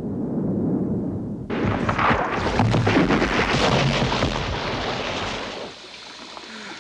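A muffled underwater rumble, then at about a second and a half a sudden loud rush of splashing water as the yellow barrels harpooned to the shark are dragged through the sea. Near the end it drops to a much quieter wash of sea water.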